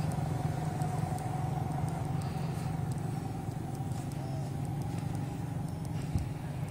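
Steady low engine drone, like a motor vehicle idling, with a faint steady higher tone above it.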